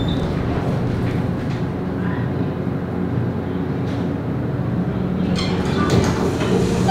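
Passenger elevator car running and coming to a stop: a steady low rumble and hum inside the car, with a few clicks and rattles about five to six seconds in.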